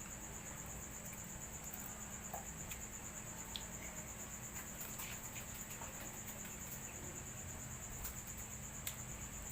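Cricket trilling steadily, a high, fast-pulsing chirr that runs on without a break, with a few faint clicks scattered through it.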